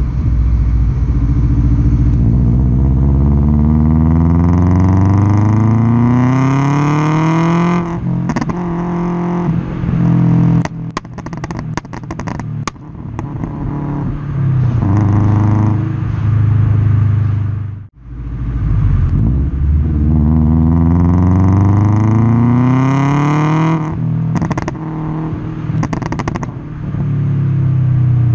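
Remapped 2004 Subaru Impreza WRX's turbocharged 2.0-litre flat-four, heard close at the tailpipe, pulling up through the revs twice. After each pull comes a string of sharp pops and crackles from the exhaust: the overrun 'popcorn' that the remap produces.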